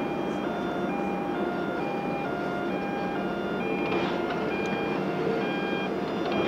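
Kleemann Mobicat MC 120i Pro mobile jaw crusher running with a steady rumble, and a faint clatter of stone about four seconds in. Over it an alternating two-tone warning beep switches pitch about every half second, typical of a quarry machine's reversing alarm.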